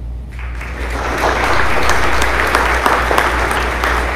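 Applause from a small seated audience in a school gym, starting abruptly a moment in and going on steadily with individual claps heard.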